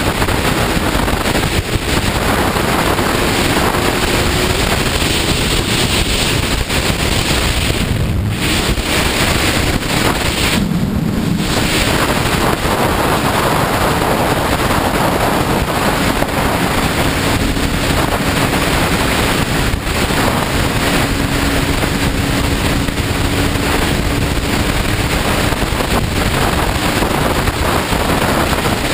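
Loud, steady wind rush on the microphone of a rider on a Suzuki GSX-R sport bike at speed. It almost covers the bike's own engine.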